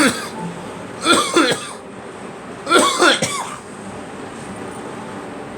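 A person coughing in short bouts: one cough right at the start, then a pair of coughs about a second in and another pair near three seconds in.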